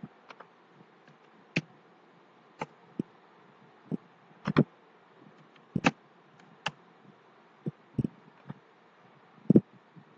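Scattered clicks from a computer mouse and keyboard, a dozen or so at irregular intervals, over a faint steady hiss.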